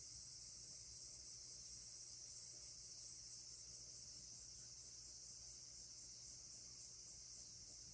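Insects chirping faintly in a high, steady trill that breaks into quick regular pulses, over a low steady hum.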